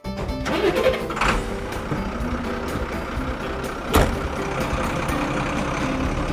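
Truck engine sound effect running steadily under a cartoon flatbed truck, with a short sharp hit about four seconds in.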